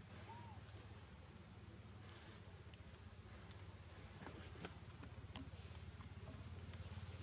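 Faint, steady insect chorus: a continuous high drone at two pitches, with a low hum beneath and a few faint clicks and a short chirp.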